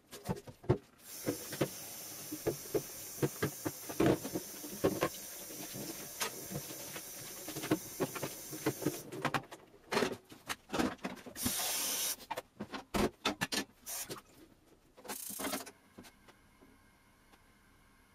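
Gyoza sizzling and hissing in a hot frying pan, with many scattered pops and crackles; the hiss stops abruptly after about eight seconds. Two short bursts of hissing follow.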